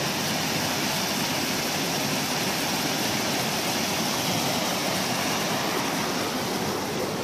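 Fast-flowing moorland stream rushing over rocks and small falls: a steady, unbroken rush of white water.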